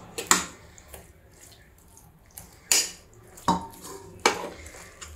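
Spatula mixing cooked rice and mutton gravy in a cooking pot, knocking sharply against the pot four times.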